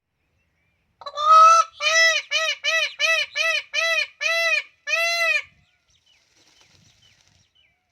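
Indian peafowl (peacock) calling: a run of about nine loud, honking calls, the first one drawn out, then short calls in quick succession, ending on another drawn-out call.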